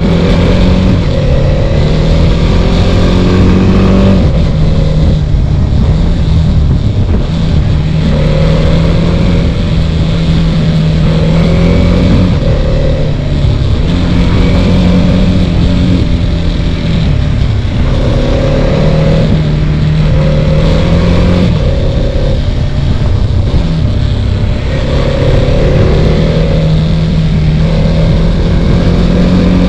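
TVS Apache RTX's 299 cc single-cylinder engine running under way, loud and continuous, its note holding steady for a few seconds at a time and breaking off and picking up again every few seconds as the bike is ridden.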